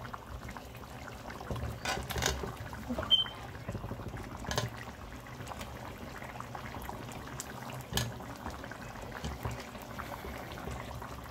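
Raw potato chunks being dropped into a pot of simmering tomato chicken stew, with a few sharp plops and knocks against the pot over the steady sound of the stew cooking.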